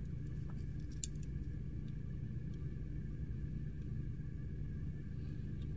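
Steady low background hum of a small room, with one sharp faint click about a second in as steel calipers are handled.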